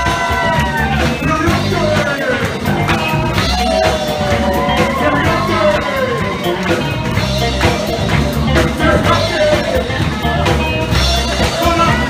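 Live band playing an upbeat rock-and-roll number, with a singing voice over a steady, pulsing bass beat.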